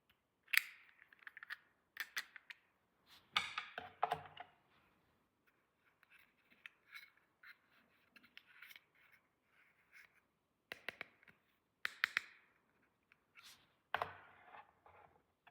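Small plastic toy pieces and packaging handled close to the microphone: irregular clicks, taps and short crinkling rustles, with quiet gaps between them.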